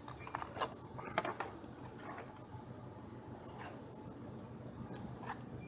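Steady high-pitched insect chorus chirring continuously. Over it come a few light clicks and knocks from handling the plastic cover and bar of a cordless chainsaw during assembly, most of them in the first second or so.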